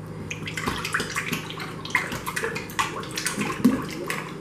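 Heavy whipping cream glugging out of a quart plastic bottle and splashing into a glass stand-mixer bowl, with an irregular run of gurgles and drips.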